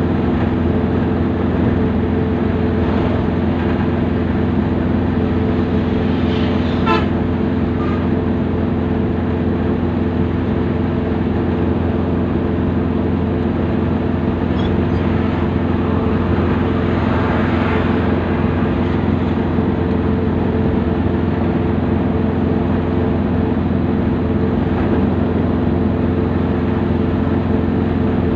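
Steady drone of a moving vehicle, with a short horn toot about seven seconds in.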